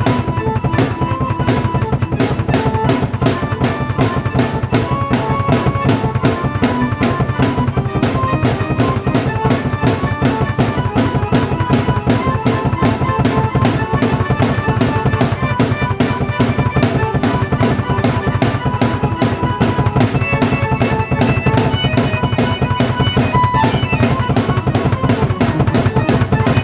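A drum kit played to a steady, fast beat while a keyboard plays a melody over it, both performed by one player.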